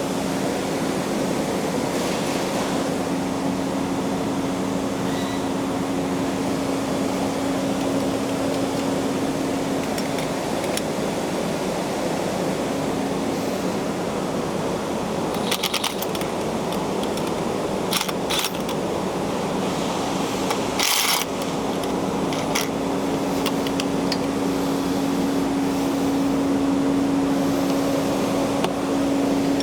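Steady machine hum with one constant tone, with scattered metallic clicks and clinks of hand tools. A quick run of clicks comes about 15 seconds in, and a short burst of noise about 21 seconds in.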